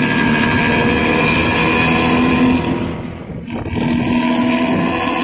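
Intercity bus's diesel engine running with a loud, growling 'ngorok' exhaust, a steady rumble that dips briefly about three seconds in and then picks up again.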